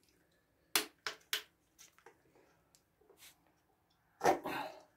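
Plastic sour-cream tub being handled: a few sharp clicks and knocks about a second in, faint small ticks, then a longer crackle near the end as the tub is worked open.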